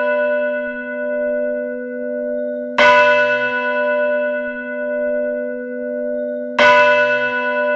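A church bell tolling. It is still ringing from a stroke just before, then is struck twice about four seconds apart, and each stroke rings on with a slow, pulsing hum.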